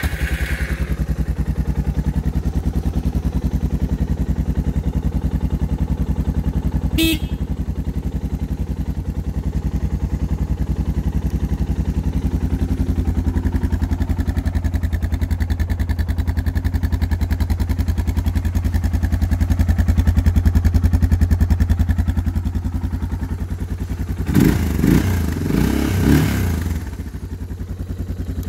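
2015 Suzuki DR650's 644 cc single-cylinder four-stroke engine idling steadily, just fired up on a cold start. Near the end the throttle is blipped a few times in quick succession before it settles back to idle.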